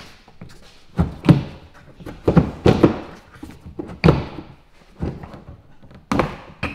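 Loose rear body panel on a Lamborghini Murcielago being pushed down and lifted by hand, knocking against the bodywork in a series of irregular thunks, the loudest a little over a second in.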